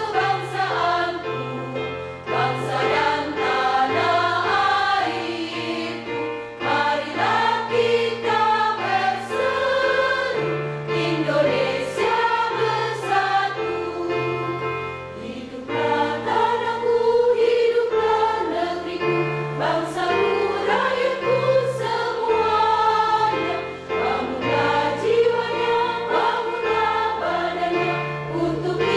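Women's choir singing a song together, voices moving from note to note over a held low bass line that steps between notes every second or two.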